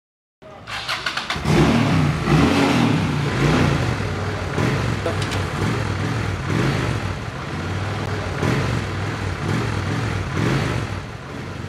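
Honda cruiser motorcycle engine starting and then being revved, its note swelling about once a second.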